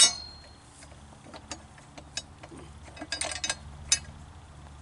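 Metal clicks and clanks of hand tools working on a push mower's blade mount as the blade is refitted: a sharp clank at the start, a quick run of clicks about three seconds in, and a single sharp click near the end.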